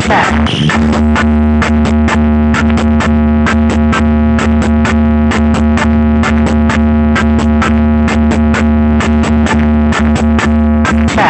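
Loud electronic music from a large stacked DJ speaker system: a held synthesizer chord over heavy, constant bass, with an even, quick clicking beat and a noisy sweep right at the start.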